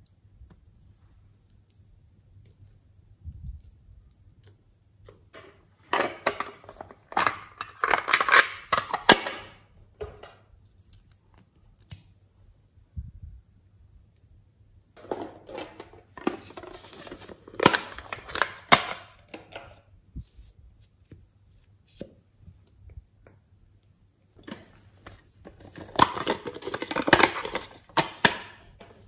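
Handling of small plastic containers and items: crackling, clicking and rattling in three bursts of about four seconds each, with near quiet between.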